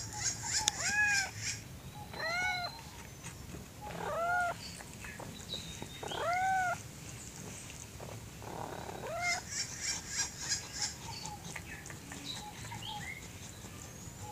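Kitten meowing: five short meows, each rising and then falling in pitch, spaced a second or two apart.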